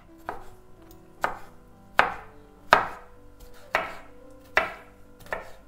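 Kitchen knife chopping salted cucumbers into small cubes on a wooden cutting board. About seven sharp chops come roughly a second apart.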